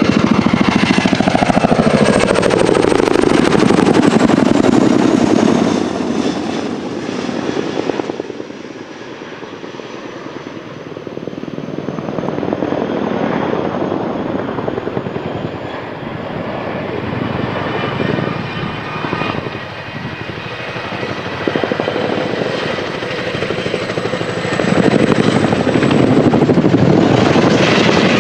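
RAF CH-47 Chinook tandem-rotor helicopter flying past, its two rotors beating rapidly over a high turbine whine. It is loud at first with the pitch dropping as it passes, fades after several seconds, then grows loud again near the end as it comes close.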